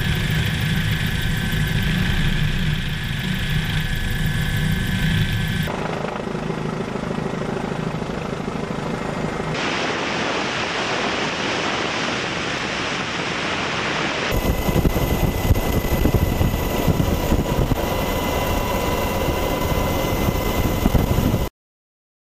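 Turbine and rotor noise of OH-58 Kiowa helicopters heard from on board in formation flight: a steady drone that changes character abruptly three times where clips are spliced together, then cuts off suddenly near the end.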